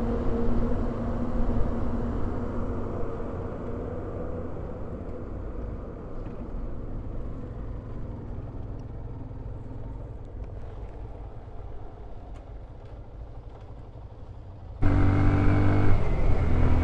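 KTM Duke 390's single-cylinder engine running at road speed under the rider, with wind noise on the microphone. The engine note slowly fades and softens, then about fifteen seconds in becomes abruptly louder with a stronger engine hum.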